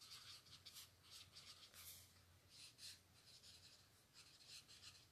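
Faint scratching of a marker pen's tip on ruled notebook paper, in short irregular strokes as cursive words are written.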